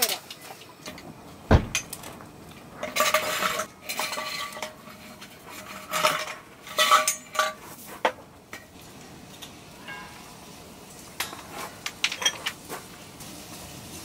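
Clinking and clattering of kitchenware and tableware: a series of sharp knocks and clinks, several with a short metallic ring, and a heavy dull thump about a second and a half in.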